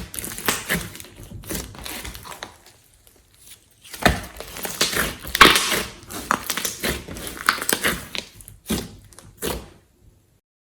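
Hands squishing and stretching glossy slime mixed with clay and glitter, in irregular bursts of crackly, sticky squishing and small pops. There is a short pause about three seconds in, and the sound stops shortly before the end.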